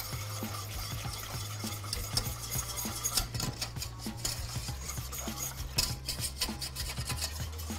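A wire whisk stirring a runny cocoa and cream mixture in a stainless steel saucepan, with quick irregular scraping and clinking of the wires against the pot, over a steady low hum.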